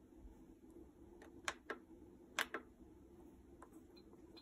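A handful of faint, sharp clicks from a Philips airfryer's control panel as its buttons are pressed and its rotary dial is turned, the loudest about one and a half and two and a half seconds in.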